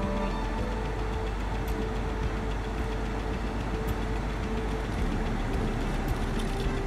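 2006 Subaru Forester SG driving along a backroad: steady engine drone and road and tyre noise, with no sudden changes.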